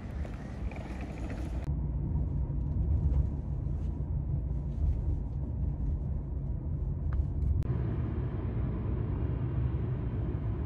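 Steady low rumble of a car driving, heard from inside the cabin: engine and road noise. The sound changes abruptly a couple of seconds in and again near eight seconds.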